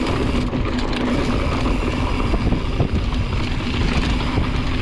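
Mountain bike coasting fast down a rocky dirt trail: a steady rumble of tyres over dirt and stones, with the rear hub's freewheel ratchet buzzing.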